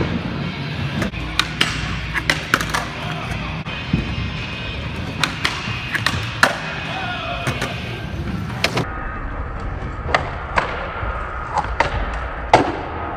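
Skateboard on a concrete floor: wheels rolling, with a series of sharp clacks and knocks from the board popping and landing, and a grind along a metal flat bar.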